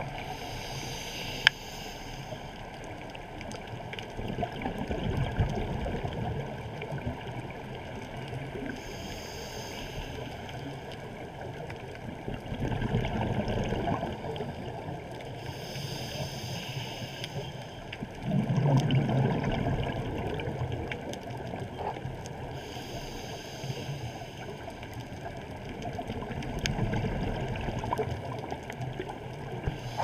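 Scuba regulator breathing heard underwater. About every seven seconds a brief inhaled hiss alternates with a low rumble of exhaled bubbles, over a steady muffled wash of water.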